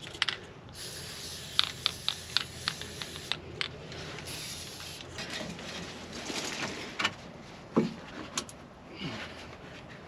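Scattered clicks, taps and scraping as a hose is worked by hand onto a tight-fitting connection on a cotton picker.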